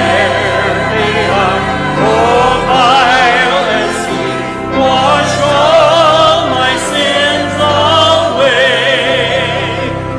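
Church hymn singing: voices with strong vibrato over a sustained low accompaniment.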